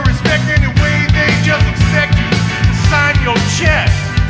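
Live rock band playing an instrumental break in a bluesy rock song: a steady drum beat and bass under a lead line whose notes bend and slide.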